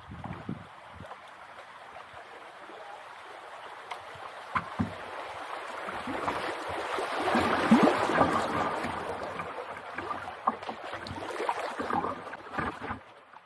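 Kayak paddling through a shallow riffle: paddle strokes splashing and water rushing over the riverbed, swelling loudest about halfway through and then easing off, with scattered short knocks and splashes.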